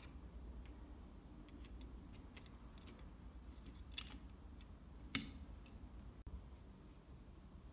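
Small plastic clicks and taps as a toy pickup's plastic seat piece is pressed onto its plastic chassis, with two sharper clicks about four and five seconds in, over a faint low hum.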